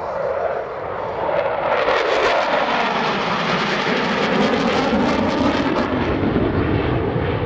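Jet noise from four F-16 Fighting Falcons flying past in tight formation, swelling about a second and a half in and staying loud, with a slowly falling pitch as the jets pass.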